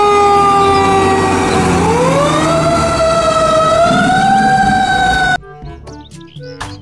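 Fire truck siren wailing over a low engine rumble: its pitch falls slowly, rises again about two seconds in, then holds and wavers. It cuts off suddenly near the end, leaving faint music.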